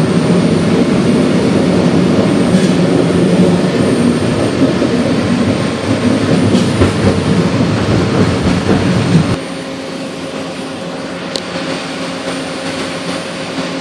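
Detroit People Mover car running on its elevated track, heard from inside the car as a steady rumble. About nine seconds in the rumble drops abruptly to a quieter, even hum.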